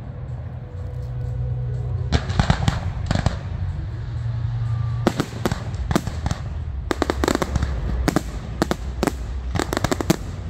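Aerial firework shells bursting overhead in a fast series of sharp bangs, bunched in several volleys, with the heaviest run near the end.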